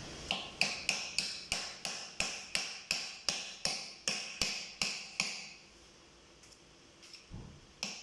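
A run of sharp metallic taps, evenly spaced at about three a second, each ringing briefly; they stop about five seconds in, and a few scattered taps follow near the end.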